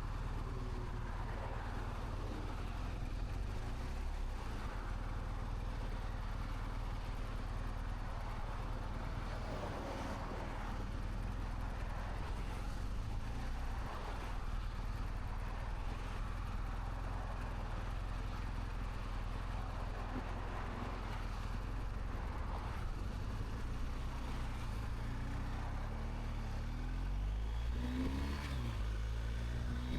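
BMW R 1250 GS boxer-twin engine running steadily, heard from inside a motorcycle helmet. Near the end its pitch rises and shifts as the bike pulls away and accelerates.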